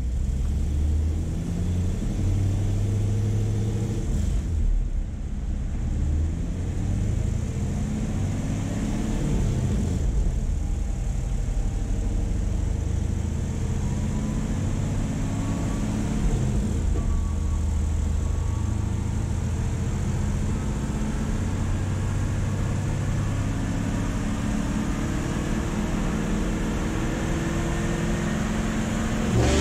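A 2016 Camaro's 6.2-litre LT1 V8 with long-tube headers running on a chassis dyno, revs rising and falling several times, then climbing near the end as the car is brought up for a pull.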